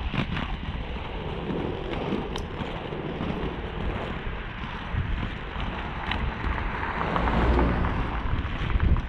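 Inline skate wheels rolling over paving with a steady rumbling hiss and a few brief clicks, with wind buffeting the microphone.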